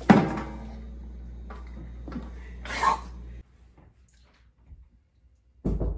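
A man gagging and coughing after biting into a bar of butter: a loud retch at the start and another about three seconds in. After a sudden cut to quiet, a fast run of knocks starts near the end.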